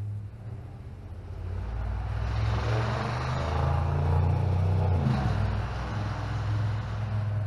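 An engine running with a steady low hum, swelling louder and rougher in the middle and dropping in pitch a little past halfway.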